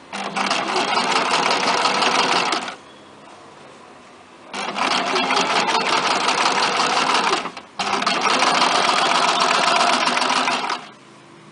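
Electric domestic sewing machine stitching a curved seam in three spells: it stops about two and a half seconds in for nearly two seconds, then runs again with only a brief break about three seconds later.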